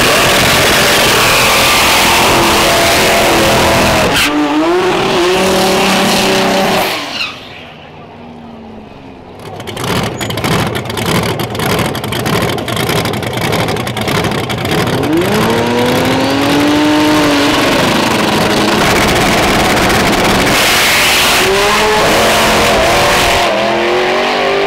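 Two drag cars, one of them a Toyota Supra with a billet 2JZ engine and a 98 mm turbocharger. First the engines rev hard with tyres spinning in a burnout. After a short quieter spell comes a rapid string of pops and crackles from the engines at the start line, and then the cars launch, engine pitch rising steeply as they pull away.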